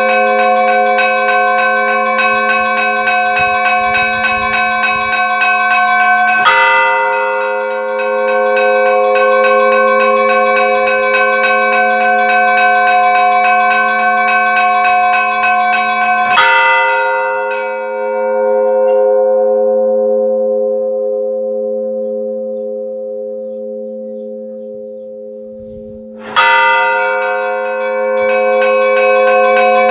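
A single large bell tolling, struck three times about ten seconds apart, each stroke ringing on and slowly fading away until the next.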